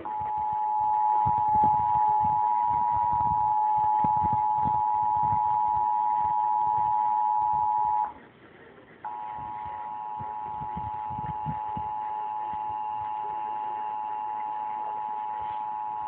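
Emergency Alert System attention signal from a cable TV broadcast: a steady two-tone chord held for about eight seconds, then after a one-second break a second, quieter chord of three tones held for about eight seconds more. It is heard through the TV speaker and recorded on a phone.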